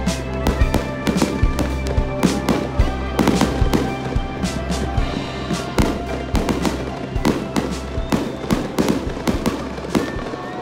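Aerial fireworks bursting in quick succession: a dense string of sharp bangs and crackles, several a second, with music playing underneath.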